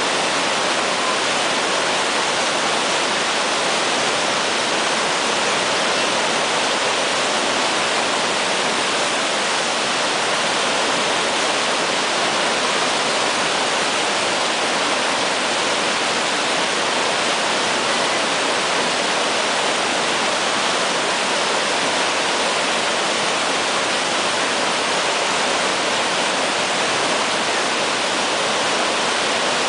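Whitewater rapids rushing, a steady, even wash of noise that does not let up.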